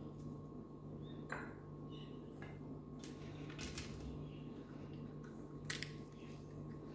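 Faint clinks and scrapes of a steel spoon against a small bowl and a steel plate as spice filling is spooned into slit okra: a few short sharp clicks spread through, over a steady low hum.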